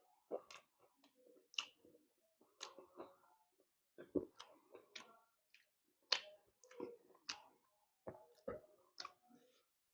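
Close-up mouth sounds of eating puri with beef liver: wet smacks and clicks of chewing that come in short clusters about once a second and stop shortly before the end.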